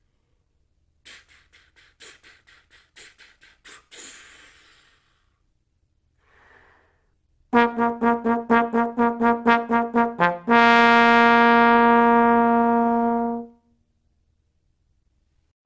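Trombone playing an articulation exercise: eleven quick tongued repeated B-flats, a short lower note, then a B-flat held for about three seconds. Before it, about eleven faint tongued puffs of air with no tone, the syllables blown through the airstream, then a breath in.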